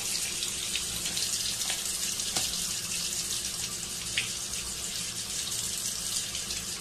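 Tap water running in a steady stream into a sink basin, splashing over a derma roller held under it to rinse it, with a couple of faint ticks.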